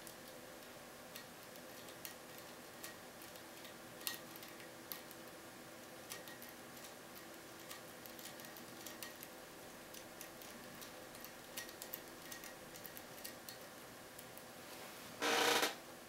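Small, irregular metallic clicks and ticks of a lock pick working the pins of a Keso 2000 round cylinder lock, whose pins sit on three axes. Near the end comes one louder burst of noise lasting about half a second.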